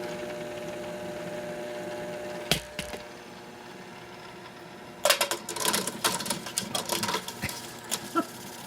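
Treadmill motor running on a rheostat and driving a belt and 3D-printed pulleys: a steady hum with a sharp knock about two and a half seconds in, then from about five seconds in a fast irregular rattling and clattering as the rig shakes.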